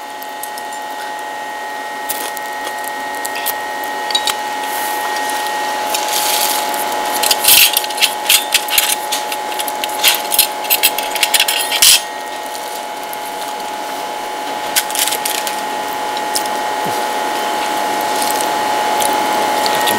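A fork clinking and scraping on a ceramic plate, in a dense run of sharp clicks from about six to twelve seconds in and a few more near fifteen seconds. Behind it runs a steady droning tone that slowly grows louder.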